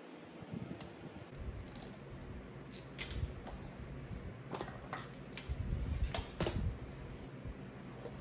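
Handling noise from a flexible rubber diamond-plate mat and a combination square on a cutting mat: low rustling with a string of sharp clicks and taps between about three and seven seconds in, as the mat is pulled away and the cut strip is picked up.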